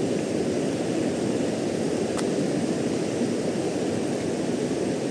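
Steady rushing of a rocky river's rapids, a constant low roar of water, with one faint click about two seconds in.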